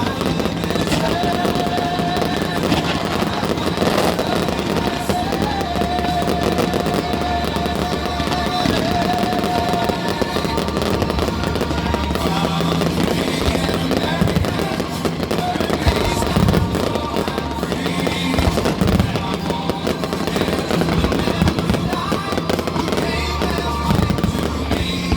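Fireworks bursting and crackling over steady background music.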